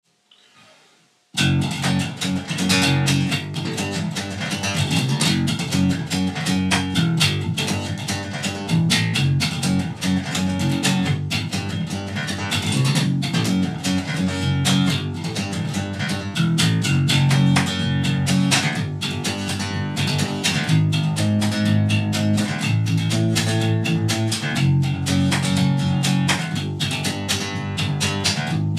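Jackson electric bass guitar playing a fast fingerstyle riff, starting abruptly about a second in.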